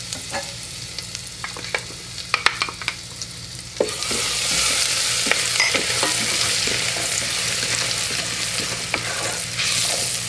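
Garlic frying in butter and olive oil in an Instant Pot's steel inner pot on sauté, sizzling while it is stirred with a wooden spoon that clicks against the pot. The sizzle turns louder about four seconds in.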